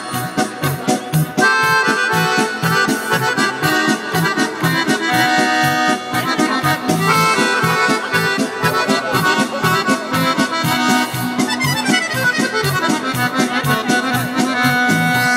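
Instrumental break of live Balkan folk music played through a PA: a fast accordion-voiced melody over a quick steady beat, with a falling run of notes about two-thirds of the way through.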